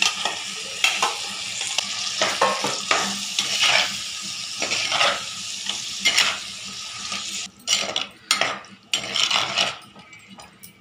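A metal ladle stirring and scraping chopped chayote and boiled green gram in a clay pot, in repeated short strokes over a steady sizzle from the hot oil. About seven and a half seconds in the sizzle drops away, leaving separate stirring strokes.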